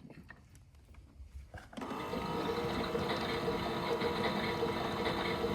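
Miele Novotronic W377 washing machine drum motor stopping for nearly two seconds, leaving only a low rumble, then starting again and running steadily with an even hum and whine. This is the drum pausing and turning again, as it does between tumbling strokes.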